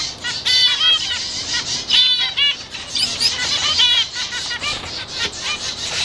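Mixed small aviary birds chirping and calling over one another. The many short, high calls overlap continuously.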